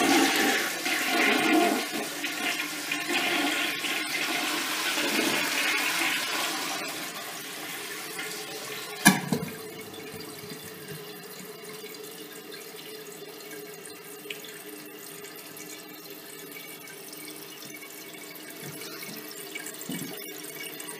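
1957 Standard Modernus toilet flushing, heard from above the open tank: water rushes out of the tank and fades over several seconds. A single knock comes about nine seconds in, followed by the steady hiss of the brass ballcock refilling the tank.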